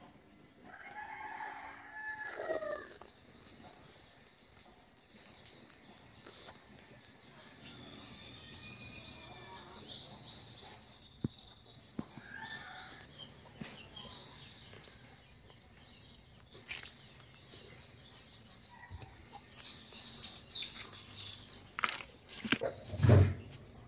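A rooster crowing about a second in, with fainter crows later, over a steady high-pitched insect drone. Scattered knocks follow in the second half, and there is one loud thump near the end.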